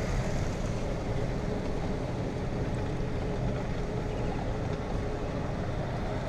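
Golf cart driving along at a steady pace: an even low rumble of the running cart and its tyres on the road.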